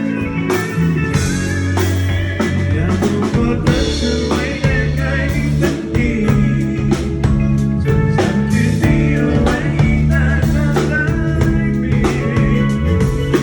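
Live band music with a steady drum-kit beat, played as a sound check.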